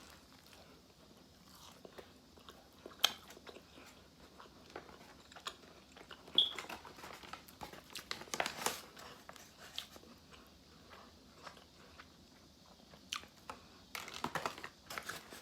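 A person biting into and chewing a crispy fried chicken sandwich close to the microphone: scattered crunches and wet chewing clicks, with a few louder crunches.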